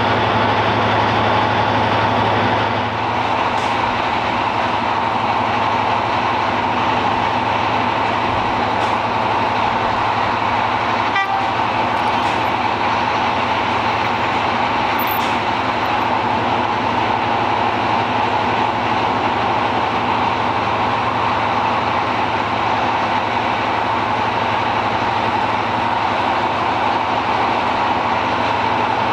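Diesel train engines running steadily. Early on, the low thrum of a Class 55 Deltic's two Napier Deltic two-stroke engines idling fades about three seconds in, leaving a steady engine drone.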